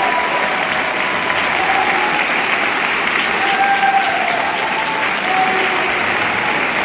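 Concert audience applauding steadily at the end of a performance, a dense, even clapping that fills the hall.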